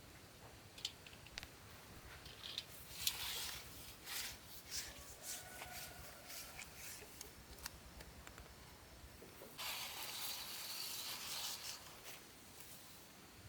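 Hand work on building materials: scattered clicks and taps with short scraping and rubbing noises, then one longer rasping stroke about ten seconds in.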